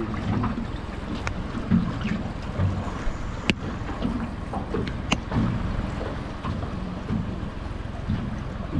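Wind buffeting the microphone over sloshing water, with a few sharp clicks.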